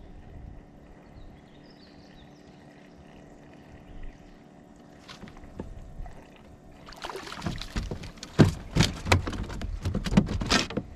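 A hooked fish splashing and thrashing at the water's surface as it is pulled in, in a quick, irregular run of splashes starting about seven seconds in.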